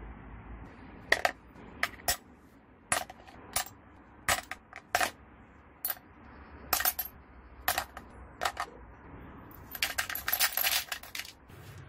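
Small metal angle-grinder parts (bevel gear, bearing housings, washers, screws) dropped one at a time into a plastic tub, each landing with a sharp clink. Near the end a handful of screws goes in together as a quick run of clinks.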